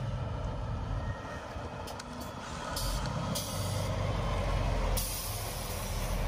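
Scania Super truck with its 13-litre six-cylinder diesel running as it drives up and passes close by, a steady low rumble that grows louder as it nears. Short bursts of hiss come about three seconds in and again near the end.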